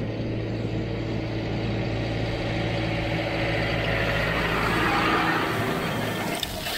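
Massey Ferguson 5S.145 tractor's four-cylinder diesel engine running steadily as the tractor passes over, towing a rotary hay rake. A rushing swish of the rake tines sweeping hay builds and is loudest about four to five seconds in.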